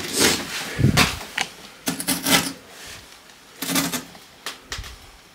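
Hands rummaging through broken glass and burnt debris on a floor: irregular clinks, rattles and scrapes every second or so.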